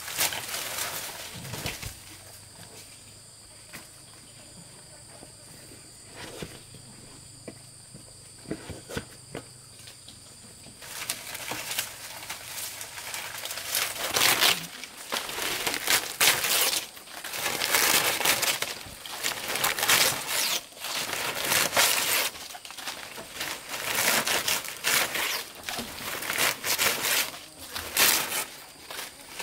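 Palm fronds rustling and crinkling in repeated noisy bursts as the long leaves are handled and pushed into place on a thatched roof. Before that, for about the first ten seconds, there is a quieter stretch with a steady high insect drone.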